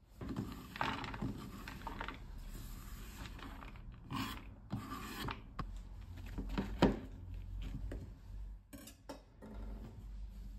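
A kitchen knife scraping and cutting on a wooden cutting board while a cluster of shimeji mushrooms is trimmed at the base and pulled apart by hand. Rough rasping and rubbing come first, then scattered knocks, the sharpest about seven seconds in.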